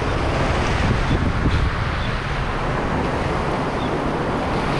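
Sea waves washing and breaking over shoreline rocks, a steady rushing surf, with wind buffeting the microphone.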